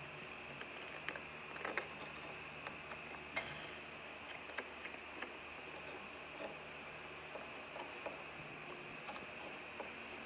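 Faint, irregular ticks and scratches from a pencil scribing compass dragged down a bumpy textured wall, its point catching on the texture while the pencil marks the wood, over a steady faint hiss.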